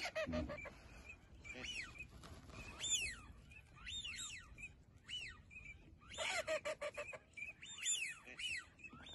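Ducks calling on the water: repeated short whistled calls that rise and fall in pitch. About six seconds in, a louder, harsher burst of calling.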